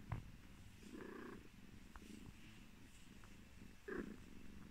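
Domestic cat purring softly and continuously while being combed, with louder swells about a second in and near the end. A short sharp tap sounds just after the start.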